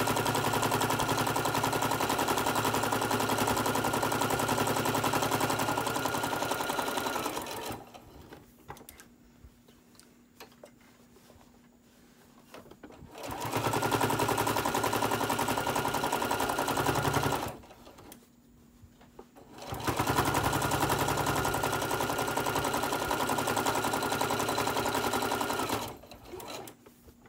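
Electric sewing machine with a walking foot stitching through the many layers of a quilted hot pad. It runs fast and steady in three bursts, about 7, 4 and 6 seconds long, and stops twice in between while the work is pivoted at a corner with the needle left down.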